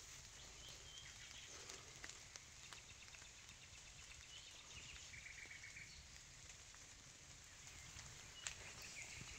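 Near silence in woodland: faint birds singing, with a short trill about five seconds in and a few soft clicks of footsteps on the path.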